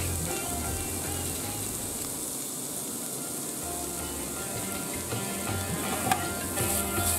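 Sliced onions sizzling as they fry in oil in a stainless steel pan, stirred with a metal spoon that scrapes the pan now and then, with a sharp tap about six seconds in.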